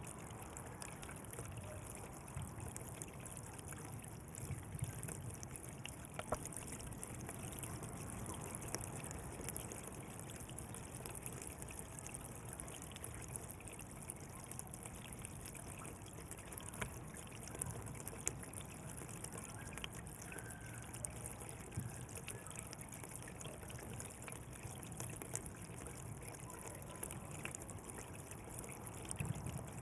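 Water flowing steadily along a channel, trickling and splashing, with small irregular drips and plops.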